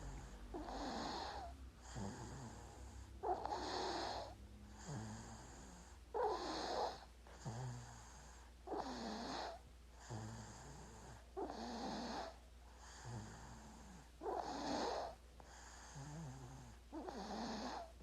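A baby snoring in its sleep. A snoring breath in comes about every two and a half seconds, seven in all, and each is followed by a softer breath out.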